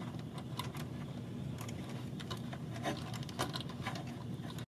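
Faint irregular clicks and wire rustle as a crimped terminal is pushed into the plastic 22-pin mirror connector, with the harness wires handled between the fingers, over a low steady room hum.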